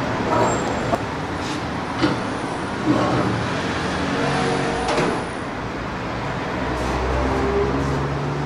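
Stainless-steel burner parts and the removable drip tray of a gas hob being handled: a few light metal knocks and clinks, over a steady background rumble.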